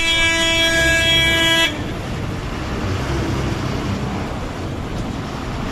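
KSRTC bus horn held in one long steady blast that cuts off about a second and a half in, followed by the bus's engine running and road noise.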